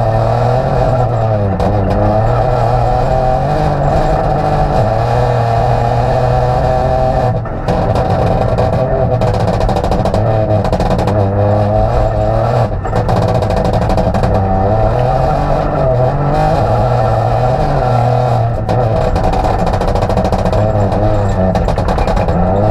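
Peugeot 208 Rally4's turbocharged 1.2-litre three-cylinder engine driven hard, heard from inside the cabin: the revs climb and drop again and again through gear changes and corners, with three brief lifts off the throttle.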